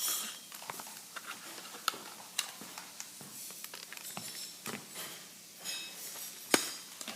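Scattered small plastic clicks, taps and rustles from handling a toy remote-control car and its controller while trying to get it to run, with one sharper click near the end.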